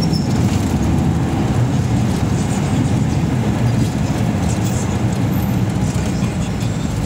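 Engine and road noise inside a moving public-transport vehicle: a steady low rumble with no distinct events.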